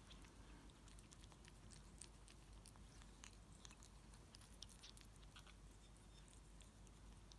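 A ferret licking and chewing cream and Christmas pudding from a bowl: faint, irregular small clicks of its mouth at the food.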